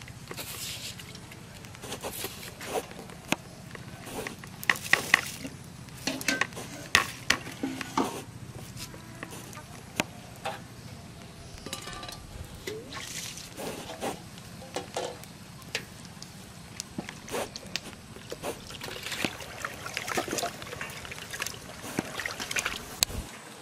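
Water sloshing and splashing in a plastic bucket as rice is washed by hand, in irregular short strokes.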